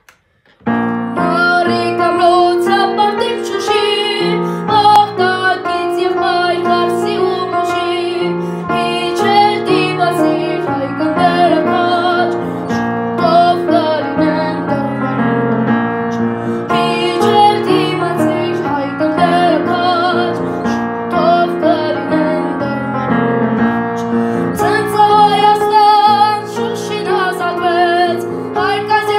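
A boy singing an Armenian song in a high voice with vibrato while accompanying himself with chords on an upright piano. The music begins about half a second in.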